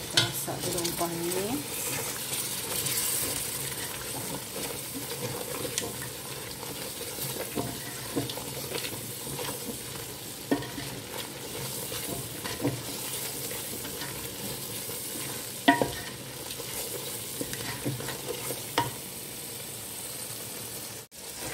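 Thick curry spice paste frying and bubbling in oil in a pot while a spatula stirs and scrapes through it. There are occasional knocks of the spatula against the pot, the sharpest about two-thirds of the way through. The paste is cooked down to the point where the oil separates from the spices.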